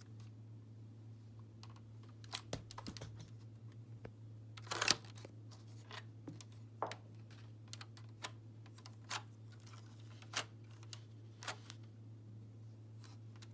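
Plastic LEGO bricks of a brick-built AUG rifle model clicking and rattling as it is handled and turned over: scattered sharp clicks, a short cluster about two to three seconds in and a louder clatter about five seconds in, over a steady low hum.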